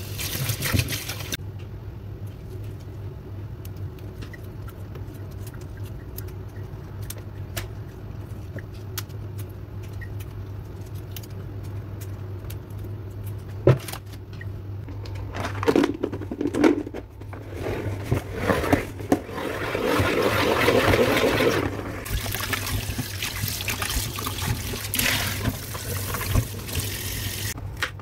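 Tap water running and splashing into a plastic salad spinner bowl of spinach leaves in a stainless steel sink, as hands wash the leaves, over a steady low hum. A few sharp knocks come about halfway through, and the rushing swells loudest for a couple of seconds soon after.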